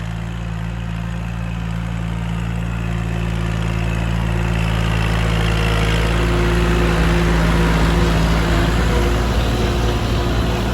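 Tractor engine running steadily while ploughing a paddy field, growing gradually louder through the first part.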